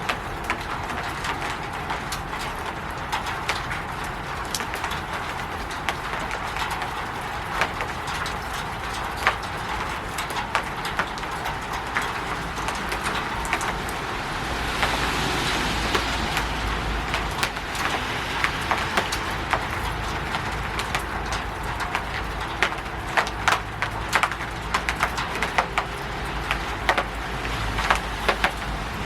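Rain falling on a roof: a steady wash of noise broken by many sharp ticks of drops striking close by. About halfway through, a fuller rushing swell builds and lasts several seconds.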